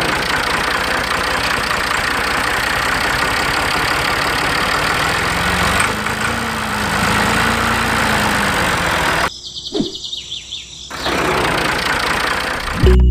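Engine running with a fast, even beat. It drops out briefly about nine seconds in and picks up again a second and a half later.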